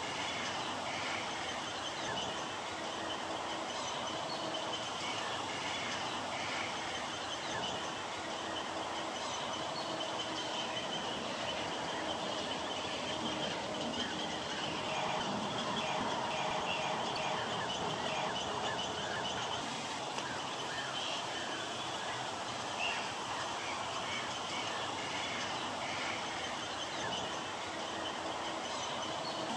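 Steady wetland chorus of many birds calling and chattering, a dense mix of short calls with no single call standing out.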